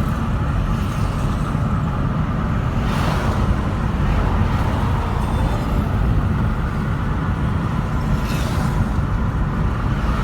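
2015 Honda Civic engine running with a misfire: a steady low rumble that flickers unevenly. Two brief hissing swells come about 3 and 8 seconds in.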